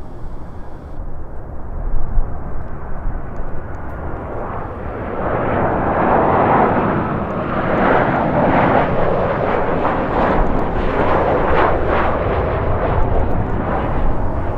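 Jet airliner passing close, its engine noise swelling about four seconds in and staying loud, over a constant low wind rumble on the microphone in strong gusting wind.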